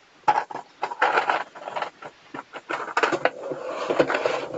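Plastic felt-tip pens clicking and clattering against each other and their plastic case as they are handled, a quick run of sharp clicks that turns into a denser, continuous rattle in the second half.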